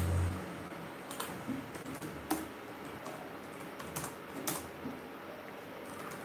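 Scattered keystrokes on a computer keyboard: a handful of separate clicks a second or more apart. A low hum stops just after the start.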